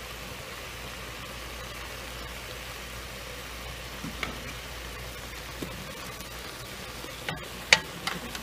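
Steady low hum and hiss of the zucchini pan cooking on the stove, with a few sharp knocks near the end, the loudest about three quarters of the way in, as a wooden spatula strikes the pan.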